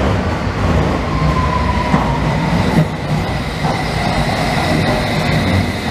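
London Underground S Stock train pulling into a station and slowing: a steady rumble of wheels and traction motors on the track, with a faint, slightly falling squeal about a second in.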